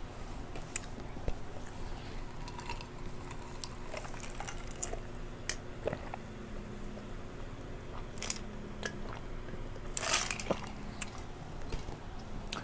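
Close-miked eating sounds: chewing and wet lip smacks, soft and scattered, with a louder cluster of smacks about ten seconds in.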